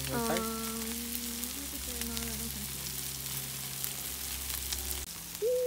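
Lamb cutlets and steak sizzling on aluminium foil on a barbecue hotplate: a steady hiss with small crackling pops. A held humming tone sounds over it in the first couple of seconds and again near the end.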